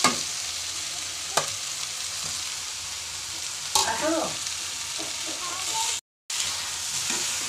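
Aloo methi (methi, tomato, boiled potato and peas) sizzling steadily in a kadai on a gas stove while it is stirred with a steel spatula, with a few sharp metal clinks of the spatula against the pan. The sound cuts out for a moment about six seconds in.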